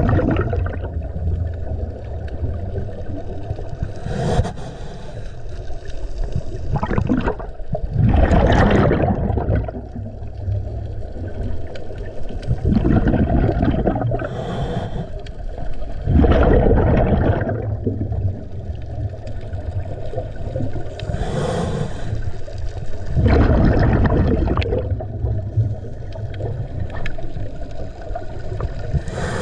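A scuba diver breathing through a regulator underwater: a gurgling surge of exhaled bubbles about every four to five seconds, with a low rumble in between.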